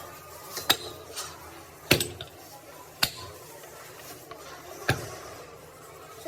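Sharp knocks and clinks of tools on metal: four louder strikes at uneven intervals, with lighter ticks between them.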